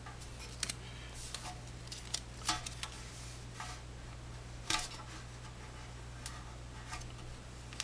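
Scattered small crackles and taps as strips of Gorilla Tape are handled and pressed down over the fuel-filler opening of a steel motorcycle gas tank, the sharpest click a little under five seconds in. A steady low hum runs underneath.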